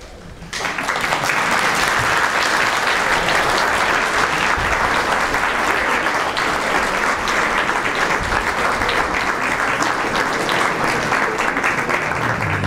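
Theatre audience applauding, starting suddenly about half a second in and going on evenly.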